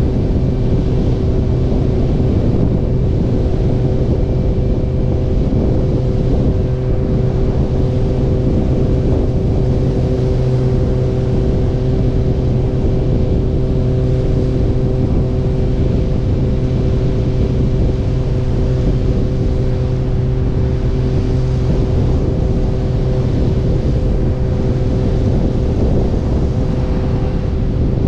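Motorcycle engine running at a steady speed, a constant hum that holds one pitch, under a dense rumble of road and wind noise.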